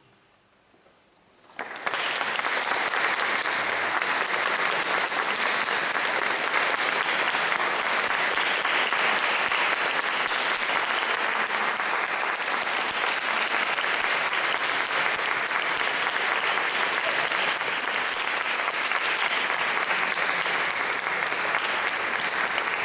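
Near silence for about a second and a half, then an audience breaks into applause that starts suddenly and keeps going steadily.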